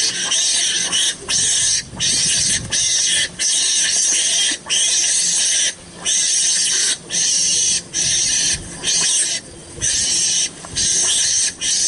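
A loud, high-pitched shrill animal sound that runs on continuously, broken by short gaps every half second to a second.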